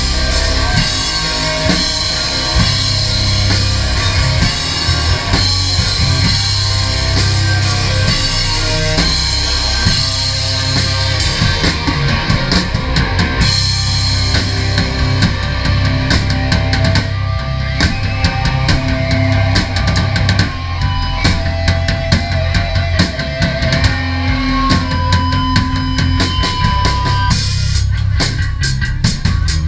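A crust punk band playing live: electric guitar and bass with a drum kit. Held guitar notes ring out in the later part, then near the end the drums pick up into fast, steady cymbal hits.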